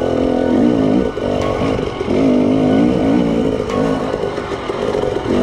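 KTM 300 TPI two-stroke dirt bike engine, heard from the rider's seat, revving up and easing off over and over, about once a second, as the throttle is worked along rough single track.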